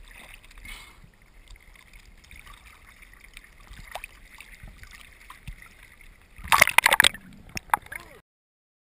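Small waves sloshing and lapping against a camera held at the water's surface, with a loud splash of water over the camera about two-thirds of the way through and a couple of smaller splashes after it. The sound cuts off suddenly near the end.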